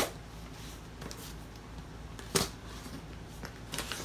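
A few sharp clicks and knocks with light rustling as a package is handled and opened. The loudest knock comes about two and a half seconds in.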